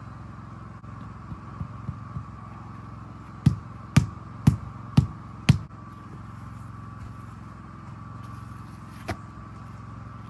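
Hammer blows on a stonework site: five sharp strikes about half a second apart, then a single fainter one near the end. An engine runs steadily underneath.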